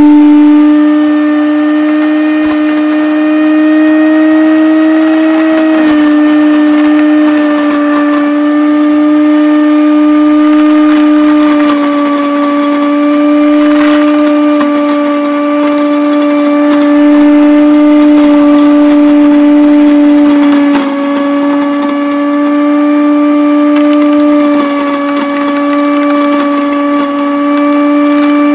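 Every Grow electric mill grinder running at full speed with a steady motor whine, grinding worm-chow pellets fed in a little at a time through its smallest mesh. Its pitch dips slightly a few times.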